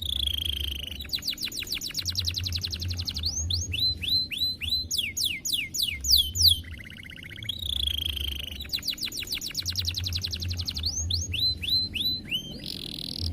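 Domestic canary singing: fast rolling trills alternating with rapid series of high notes sweeping downward, phrases recurring about every six seconds. A steady low hum runs underneath.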